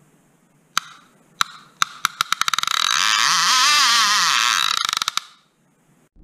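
A fishing reel's clicker used as an intro sound effect. Single clicks come faster and faster until they run together into a continuous whirring buzz with a wavering pitch, then break back into slowing clicks and stop, as when a fish runs line off the reel.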